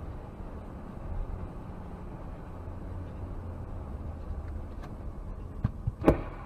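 Steady low road and engine rumble heard from inside a moving vehicle, then near the end a couple of short thuds and one loud bang as a truck on the road ahead crashes.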